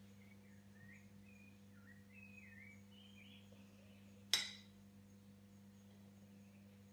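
A single sharp clink of a metal spoon against a ceramic plate about four seconds in, as a slice of cake is cut, over a low steady electrical hum. Faint warbling bird song in the first half.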